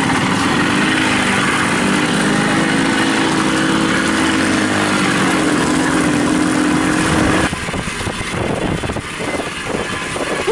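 Babetta moped's small two-stroke engine running under way on a rough dirt track, its pitch wavering a little over a wide rushing noise. About seven and a half seconds in the sound drops abruptly to a quieter, choppier mix of engine and knocks from bumps.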